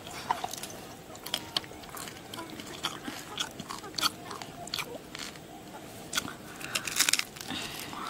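Close-up eating sounds of a roasted beef hoof gnawed by hand: bites and chewing with irregular wet clicks, busiest about seven seconds in.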